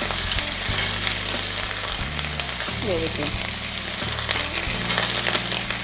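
Chopped onions, green chillies and capsicum sizzling and frying in a hot non-stick frying pan while a wooden spoon stirs them, with a few light clicks of the spoon against the pan.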